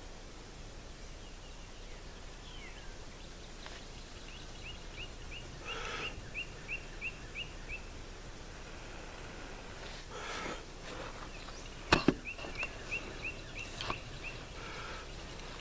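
A bird repeating a short high chirp about three times a second, in two runs, over outdoor background hiss, with brief rustling and one sharp knock about twelve seconds in.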